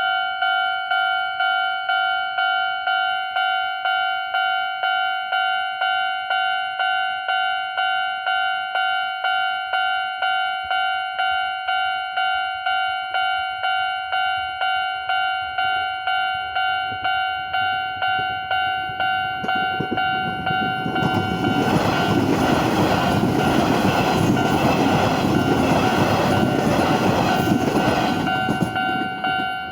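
Railway level-crossing alarm ringing its electronic bell tone about twice a second. About two-thirds of the way through, a train passes over the crossing, its rumble loud over the bell, then dies away near the end while the bell keeps ringing.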